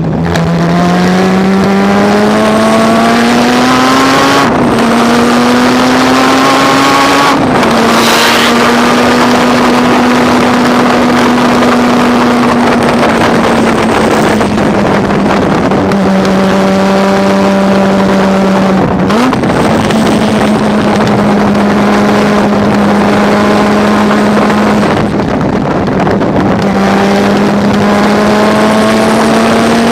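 Mazda RX-7's rotary engine racing under load, its pitch climbing and then dropping sharply at gear changes about four and seven seconds in. It then holds a fairly steady pitch with a brief dip near nineteen seconds and climbs again near the end.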